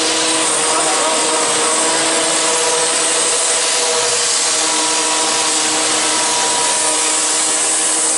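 Abrasive disc cutter grinding through the steel body of a railway coach: a steady grinding noise with a constant whine, unchanging throughout.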